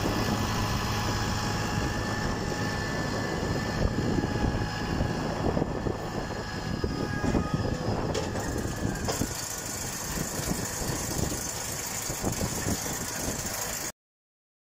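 Stacker 84 bale stacker working in the field: a steady engine hum under irregular metallic knocking and rattling from the machine's frame and moving parts.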